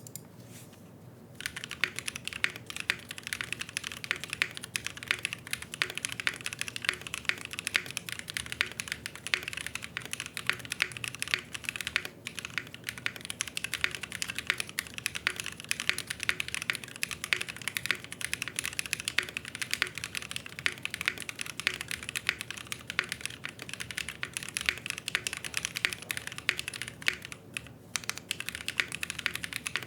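Typing on a gasket-mounted aluminium RE65 mechanical keyboard with lubed Kailh Cream linear switches and GMK keycaps: a fast, continuous run of keystrokes that starts about a second and a half in, with a couple of brief pauses.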